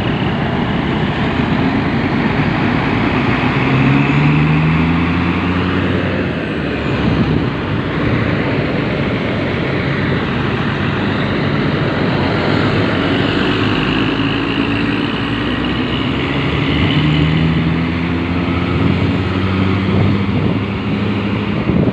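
Hino bus diesel engine running under load with the rough, snoring 'ngorok' exhaust note, rising in pitch as it accelerates twice, a few seconds in and again past the middle.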